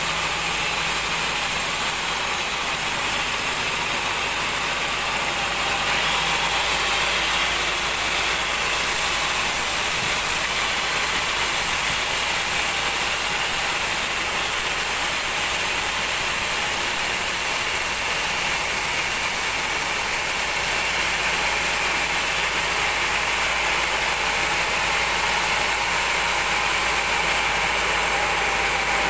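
Sawmill band saw running steadily as its vertical blade rips lengthwise through a large mahogany log, sawing off a slab.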